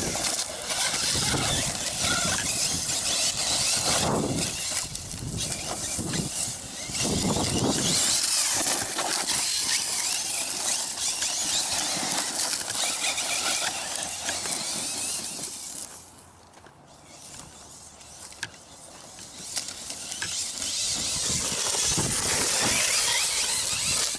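1/8-scale electric RC truggy (HobbyKing BSR Berserker on a 3S LiPo) driving hard over rough, rocky ground. Its brushless motor whines, rising and falling with the throttle, while the tyres scrabble over gravel and the chassis knocks against rocks. It goes quieter for a few seconds about two-thirds of the way through, then picks up again.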